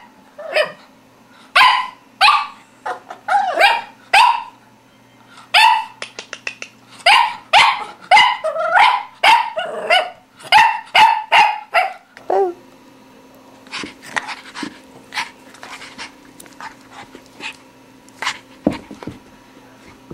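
English Toy Spaniel puppy barking in a long string of short barks while stuck on a chair; the barking stops about twelve seconds in, leaving only faint scattered taps.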